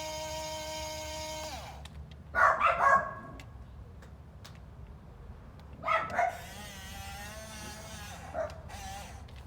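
A dog barking in short bursts: three quick barks about two seconds in, two more around six seconds, a wavering whine after them and a single bark near the end. A steady electric whine cuts off about a second and a half in.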